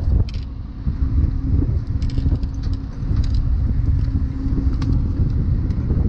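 Boat engine running steadily: a low rumble with a constant hum, mixed with wind noise, and a few light clicks and knocks scattered through it.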